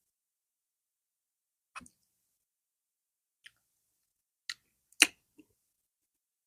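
Eating sounds of a person eating fufu with soup: about five scattered sharp clicks and smacks, the loudest about five seconds in.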